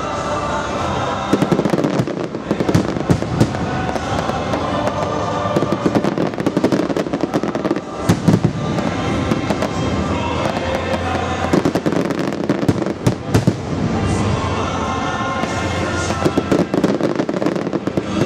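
Aerial fireworks shells bursting, a rapid series of sharp bangs and cracks in several clusters, over music playing along with the display.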